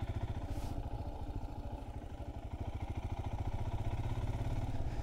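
Royal Enfield Himalayan's 411 cc single-cylinder engine running as the motorcycle is ridden, a steady, even beat of firing pulses that grows a little louder in the last couple of seconds.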